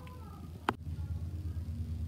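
Quiet room tone with a steady low hum, broken by a single sharp click about two-thirds of a second in, where the recording cuts to a new shot; the hum is louder after the click.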